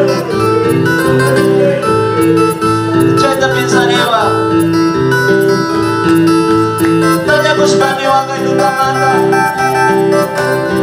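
Electronic keyboard playing a lively melody over a steady, repeating bass line.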